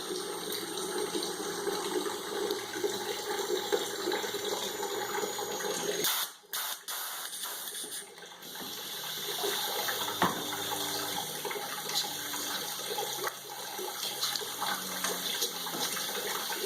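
Water running and dripping out of wet sawdust-and-paper pulp being squeezed in a jack-operated briquette press, with a brief break about six seconds in.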